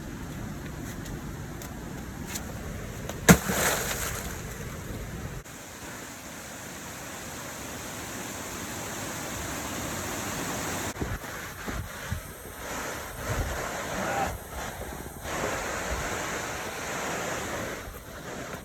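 A big rock, thrown by hand, lands with one sharp, loud impact about three seconds in, over a steady rush of water and wind.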